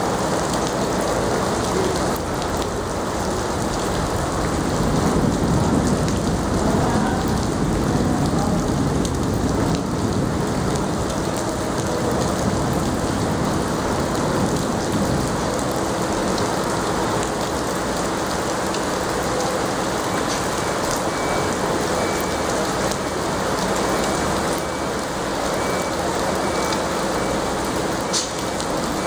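Heavy typhoon rain falling steadily onto a flooded street, a continuous even hiss.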